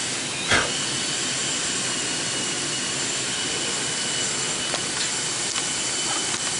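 Steady rushing noise with a faint high whine from running workshop machinery, with a brief knock about half a second in.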